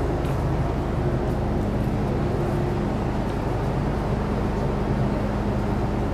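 Interior running sound of an MTR Metro Cammell M-Train electric multiple unit (C192) under way: a steady rumble of wheels and traction, with a steady low hum.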